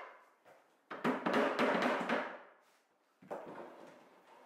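Wood-on-wood knocks as shelf pieces are fitted into a wooden rack: a rapid rattling run of taps lasting about a second, then another single knock that fades away.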